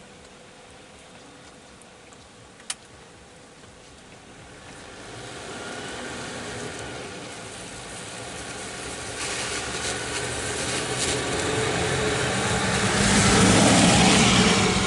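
A motor vehicle's engine and tyres approaching, growing steadily louder to pass close near the end, after a quiet start broken by a single sharp click.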